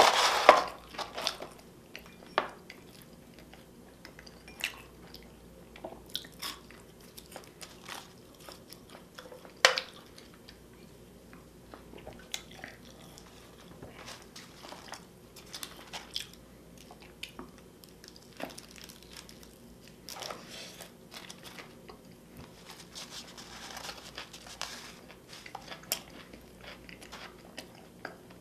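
A person chewing and biting food close to the microphone, with many small wet mouth clicks and smacks. There are louder bites right at the start and about ten seconds in.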